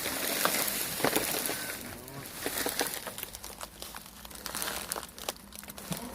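Dry banana leaves and stalk crinkling and crackling as the plant is handled and pulled on, in irregular snaps that are densest over the first two seconds and thin out after.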